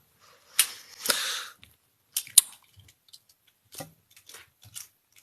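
Quiet mouth and handling noises with no burp: a short breathy hiss about a second in, then two sharp clicks a little after two seconds and a few faint ones later.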